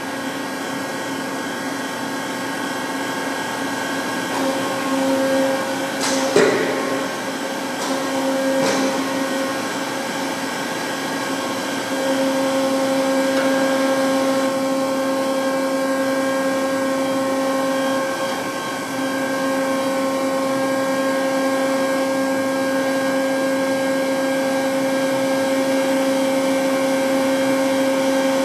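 TOS Hostivar BUB 50 universal cylindrical grinder running: a steady motor hum with a higher whine over it, which steps up a little in level about twelve seconds in. A few sharp clicks come between about six and nine seconds in.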